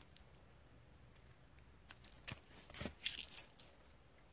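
Faint handling of clear plastic trading-card cases and sleeves: quiet at first, then a couple of light plastic clicks about two seconds in and a short crinkly rustle about three seconds in.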